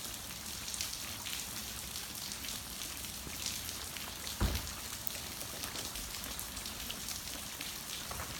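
Steady rain falling, with many individual drops pattering. There is a single low thump about halfway through.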